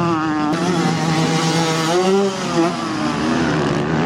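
Two-stroke motocross bike engine revving, its pitch rising and falling.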